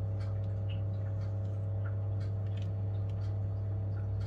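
Cheese being grated on the fine side of a stainless steel box grater, faint irregular scraping strokes, under a loud steady low hum.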